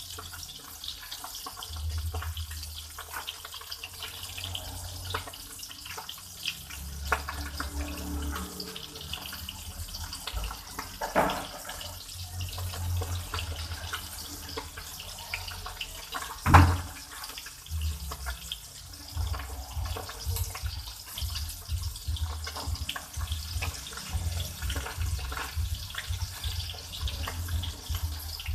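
Water running from a tap into a sink, steady throughout, with a couple of sharp knocks, the louder one about two-thirds of the way through.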